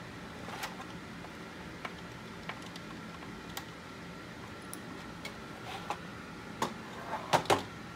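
Light clicks and taps of hard 3D-printed plastic model parts being handled, with a few louder plastic knocks near the end as the cowl is set down on the base piece. A faint steady hum underneath.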